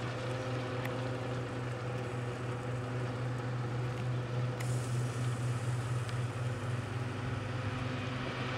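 Self-propelled grape harvester's diesel engine running steadily under load with a low hum.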